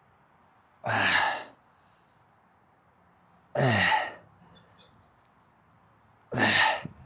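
A man's hard, sighing exhalations with voice, one per rep, each about two-thirds of a second long and falling in pitch; there are three of them, about three seconds apart. They are the sound of a lifter straining through the reps of a heavy set.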